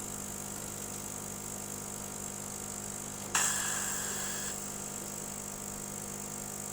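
Steady machine hum from a CO2 laser cutter's fans and pumps, made of several unchanging tones. About three seconds in, a sudden sharp, hissing-ringing sound starts and fades away over about a second.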